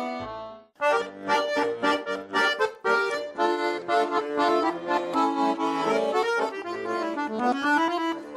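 A held chord fades out, and after a brief gap about a second in, an accordion starts a lively instrumental introduction to a folk song with quick, detached notes.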